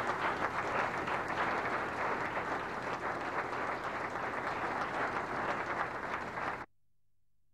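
A group of people applauding: steady, dense hand-clapping that cuts off abruptly near the end.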